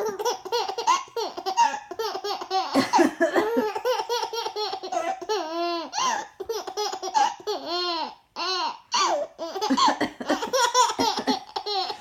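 A baby laughing hard, in a run of high-pitched laughs that rise and fall in pitch, with short breaks for breath.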